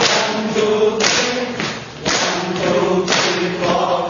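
Hand claps about once a second, keeping the beat of a four-beat clapping exercise, over a group of voices chanting in unison.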